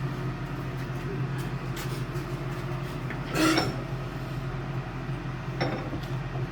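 Steel tools and bar clinking and clanking at a blacksmith's forge: a few light knocks, one louder ringing clang about three and a half seconds in, and a lighter one near the end, over a steady low hum.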